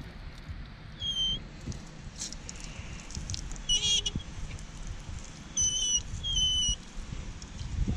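Water from a garden hose spray nozzle splashing on a truck wheel and tyre, a steady low hiss. Short high chirps sound over it several times, one of them a quick trill about four seconds in.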